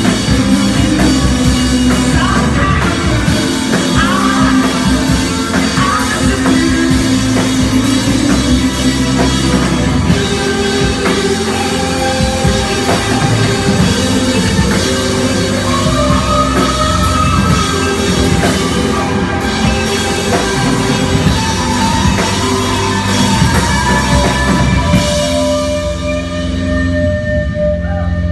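Live rock band playing loud, with a drum kit, cymbals, electric guitars and bass. Near the end the cymbals drop out and the sound thins.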